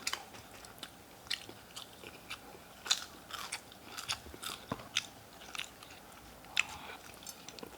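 Close-up biting and chewing of crispy-coated fried chicken, with irregular short crunches and crackles of the breading between quieter chewing.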